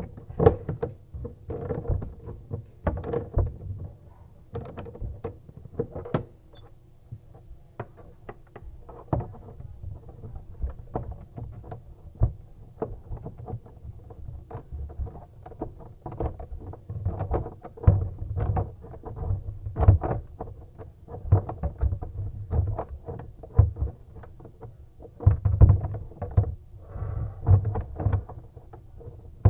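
Irregular clicks, knocks and thumps of tools and fittings working under a bathroom sink as a lavatory faucet is fastened in place, likely a basin wrench on the mounting nuts. Heavier thumps come in the second half.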